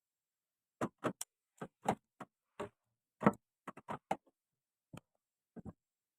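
An irregular run of about fifteen sharp clicks and knocks over four or five seconds, the loudest a little past the middle.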